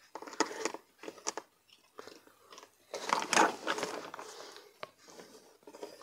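Handling noise from a plastic RC car remote: irregular clicks, scrapes and rustling as its battery cover is opened to reach the AA cells and the multimeter test leads are picked up.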